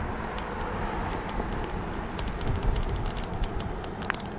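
Northrock XC00 fat bike being ridden on a lightly snowy trail: a steady low rumble of wind and tyre noise on the camera microphone, with many small sharp clicks and crunches scattered through it.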